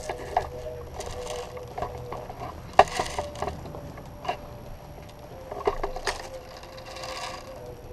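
Scattered sharp clicks and snaps with two swells of rustling, the sharpest snap about three seconds in.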